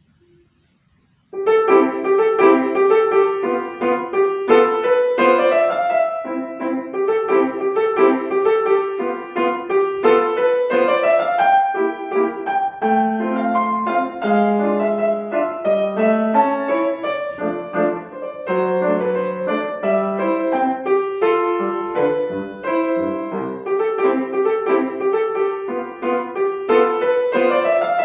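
Piano playing a classical piece, starting about a second in with a quick run of notes after a near-silent pause.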